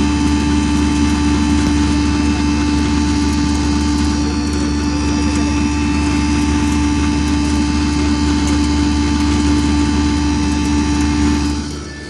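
20 HP double-chamber stoneless chana dal (besan) grinder with its blower running under load while split chickpeas feed into it: a loud, steady machine drone with a strong held tone. It gets noticeably quieter just before the end.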